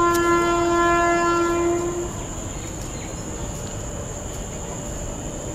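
Indian Railways WAP-7 electric locomotive's air horn sounding one steady blast of about two seconds as the train approaches the station.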